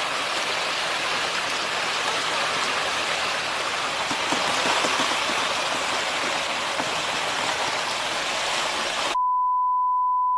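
A steady rushing hiss of slushy water and ice as an SUV is dragged out of a hole in the ice. About nine seconds in, all sound cuts out for a steady electronic bleep tone of the kind used to censor a word.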